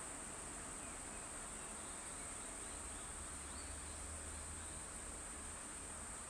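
Steady high-pitched insect drone in the trees, with a few faint short bird chirps about three to four seconds in and a low hum underneath.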